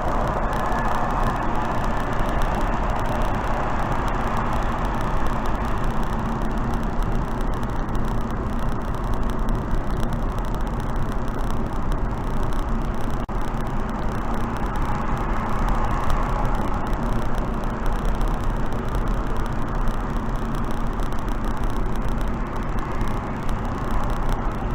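Steady wind and road noise of a car cruising at speed on an expressway, an even rushing hiss over a low rumble.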